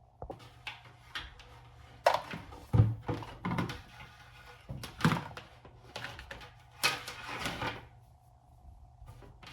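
A run of irregular knocks, clicks and clatters, as of objects being handled and set down, loudest about two to three seconds in and again around five and seven seconds, over a faint steady hum.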